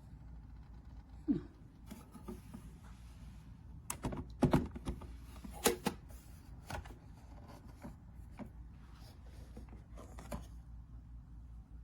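Scattered clicks and knocks of objects being handled, with a short falling squeak about a second in. The loudest knocks come in a cluster about four to six seconds in.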